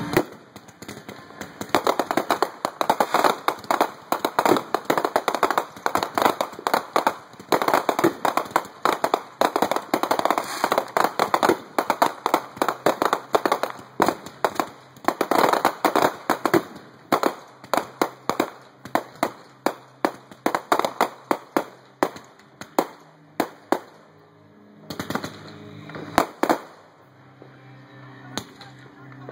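Fireworks barrage: a dense, rapid string of sharp bangs and crackles from aerial shells going off for over twenty seconds, thinning to a few separate bangs near the end.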